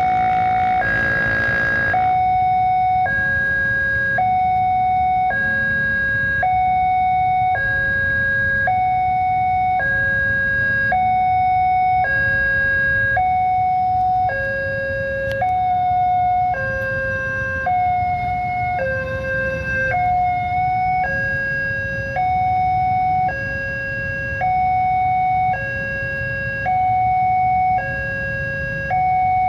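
Railway level-crossing warning alarm from the crossing post's loudspeaker: an electronic two-tone signal alternating high and low, about one cycle every second and a half, warning that the barrier is down for an approaching train. A steady low rumble of waiting motorbike and street traffic runs underneath.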